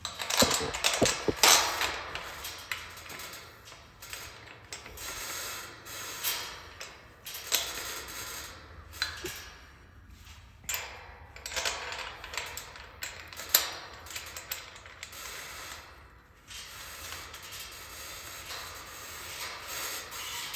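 Irregular mechanical clicking and scraping of hand-tool work as a gate hinge peg is driven into a pilot hole in a wooden gatepost.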